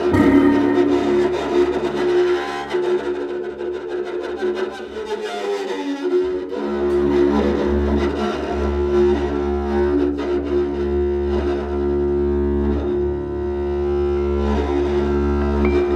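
Bass koto bowed alongside an electric guitar played with a stick, sustaining overlapping drones: long held mid-range tones over a steady low hum. The low drone drops away briefly about five seconds in, then returns.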